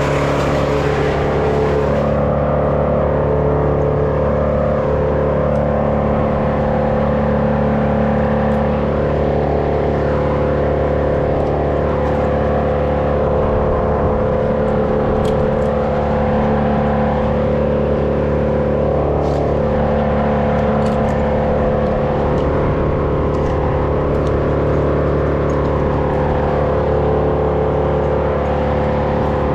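An engine running steadily at an even speed, with no revving or cutting.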